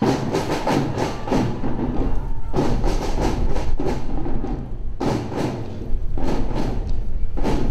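School marching band drumline playing a cadence: snare and bass drums beating in a rhythmic pattern of quick strikes, with short breaks between phrases.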